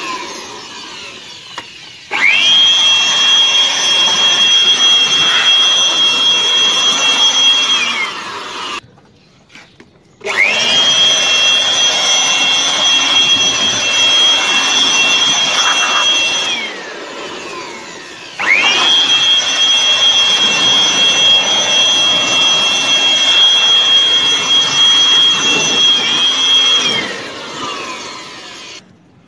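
Battery-powered handheld cleaning machine's electric motor clearing dirt from a car's floor: it whines up to full speed in three long runs, each held steady for several seconds and then winding down. Between runs it drops to a lower speed, and about a third of the way through it stops briefly.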